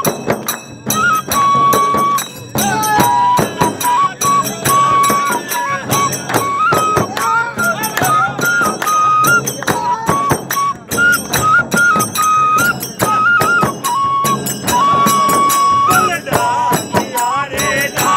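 Bamboo bansuri flute playing a Rajasthani folk dhamal melody, stepping between a few held high notes, over fast, steady beating of daf frame drums with jingling percussion.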